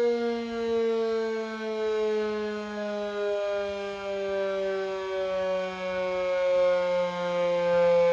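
Electric motor siren sounding the 6 p.m. time signal: one long wail with many overtones, sliding slowly down in pitch while its loudness swells and dips.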